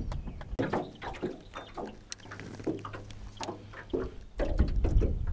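Water slapping and knocking against the hull of a small aluminum jon boat, in short irregular knocks. A steady low hum runs through the middle, and a louder low rumble sets in near the end.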